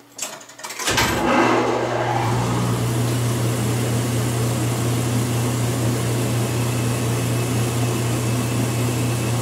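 Automatic music machine's blower motor coming on after a few clicks: a steady low hum with a haze of air noise, no notes playing yet.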